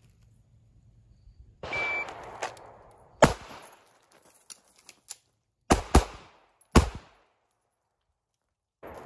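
CZ 75 SP-01 Tactical pistol firing four shots: one about three seconds in, then a quick pair and a last shot a second later. Before the first shot there is a short scuffle of feet on gravel.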